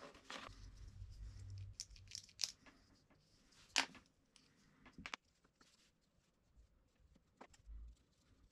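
Faint handling of electrical cables and small plastic clip sleeves by hand: rustling with a scatter of sharp clicks, the loudest a little under four seconds in, and a short low knock near the end.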